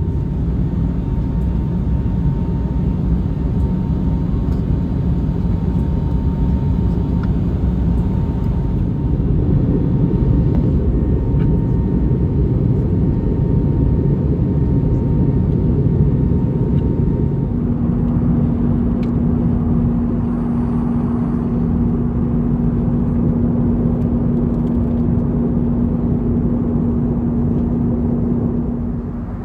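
Airbus A321neo cabin noise in flight: a steady low rush of engine and airflow. A faint steady tone runs through it and, a little past halfway, gives way to a lower, steady hum.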